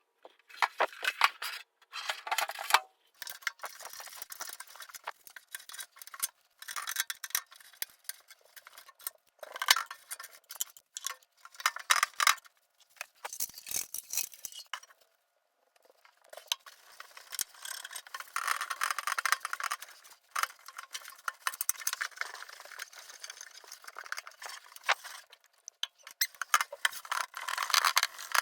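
Irregular clinking, rattling and scraping of hard objects being handled, coming in bursts with short pauses between them.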